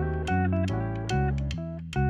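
Background music led by plucked guitar over a bass line, its notes coming at a steady rhythm.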